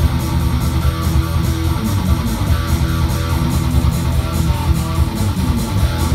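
Electric guitar played through an amplifier: a continuous riff with heavy low end, picked in a fast, even rhythm.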